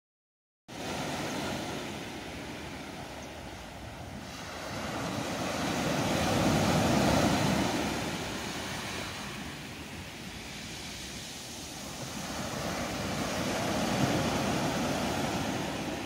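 Ocean surf: a steady rushing wash of waves that starts a moment in and swells louder twice, about halfway through and again near the end.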